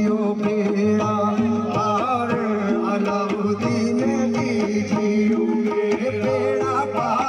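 Live qawwali music: a harmonium's held and moving notes over tabla-style hand drums beating a steady, regular rhythm.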